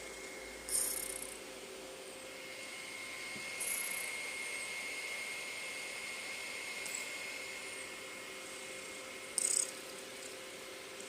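Sleeping cat snoring: short, high, breathy snores about every three seconds, over a steady faint background whine.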